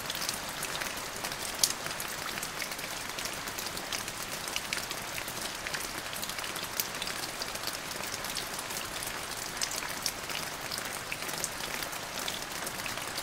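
Steady rain falling: an even hiss of rain with scattered sharp ticks of individual drops.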